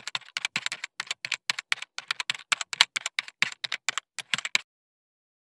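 Typing sound effect: a rapid run of keystroke clicks, about five a second, that stops abruptly about four and a half seconds in.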